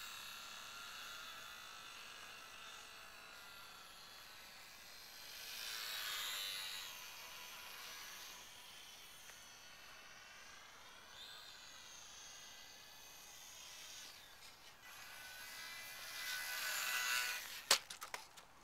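HobbyZone Champ micro RC plane's small electric motor and propeller buzzing in flight, its whine rising and falling in pitch with the throttle and growing louder twice as the plane comes near. A sharp knock near the end as the plane comes down.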